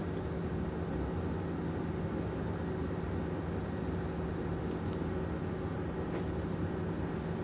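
Steady background hiss with a low, constant hum, unchanging throughout.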